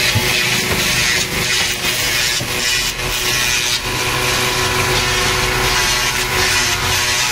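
Woodworking power machinery running, a steady hum under a loud hiss of wood being sawn, the hiss dipping briefly at short, fairly regular gaps.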